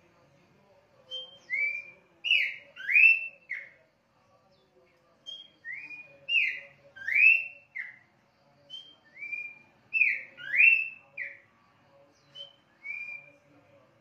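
Pelanduk semak (Horsfield's babbler) singing loud whistled phrases, about one every three to four seconds. Each phrase is a short high note followed by a quick run of slurred notes that swoop up and then drop.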